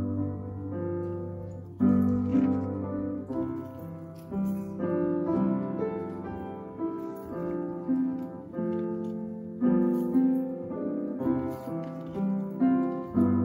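Solo piano music at a slow, even pace: chords struck about once a second, their notes left to ring.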